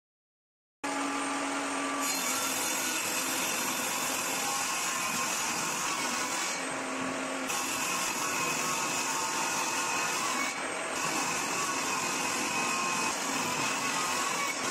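Benchtop table saw running and ripping a rough-sawn board lengthwise along the fence. It is loud and steady, and its hiss shifts a few times as the blade loads in the wood. It starts abruptly about a second in.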